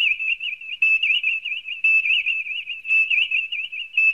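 A high whistled tone with quick little dips in pitch, in a pattern that repeats about once a second.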